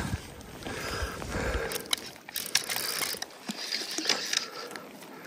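Fly reel clicking in irregular runs of ticks as line comes off or goes onto the spool while a hooked trout is being fought.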